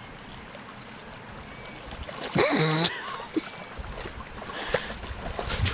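A hooked pike thrashing in shallow lake water at a wading angler's legs, with one loud splash about two and a half seconds in.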